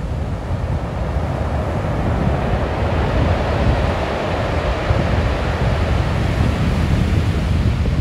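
Sea waves washing onto a beach, one wave swelling to a peak a few seconds in and easing off, over a steady low rumble of wind on the microphone.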